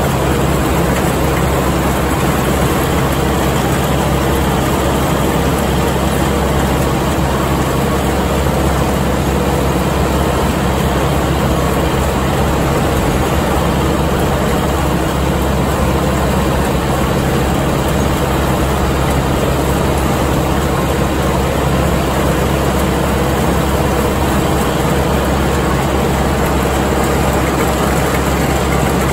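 Kubota MX5200 tractor's four-cylinder diesel running steadily under load while it drives a New Holland haybine cutting standing hay.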